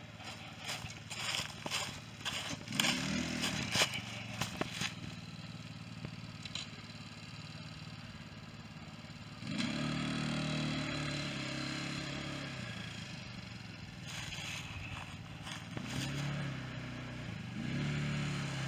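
Small ATV engine running, revving up and down a few times, steady and louder from about halfway. In the first few seconds, footsteps crunch and rustle through dry leaves.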